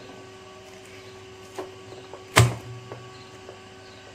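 Glued plastic diffuser dome of an LED bulb being forced off its body by hand: a few small clicks and creaks, then one sharp crack about two seconds in as the glue bond breaks and the dome comes free.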